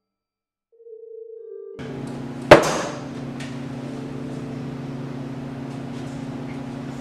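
Silence, then a short steady tone about a second in. From about two seconds a steady low hum sets in, and half a second later comes one sharp, loud knock that rings briefly.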